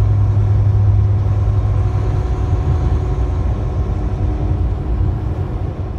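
Semi-truck engine and road noise heard from inside the cab while driving on a highway, a steady drone with a deep hum that eases off after about two seconds.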